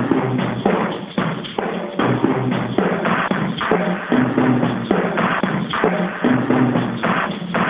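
Instrumental music driven by a busy, knocking percussion pattern over sustained low notes.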